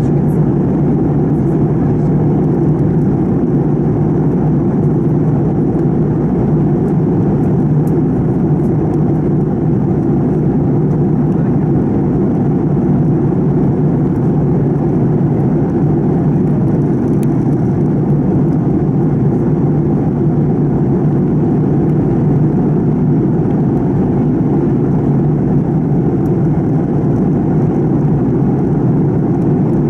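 Steady cabin drone of a Fokker 70 in flight, heard inside the cabin beside its rear-mounted Rolls-Royce Tay turbofan, with a constant low hum under the rushing noise.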